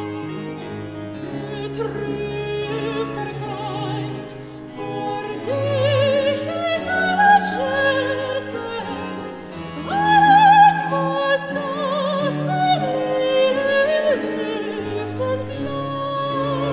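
Baroque opera music: a soprano sings held notes with vibrato over a period-instrument orchestra of strings and harpsichord continuo. The voice is loudest on high notes about ten seconds in.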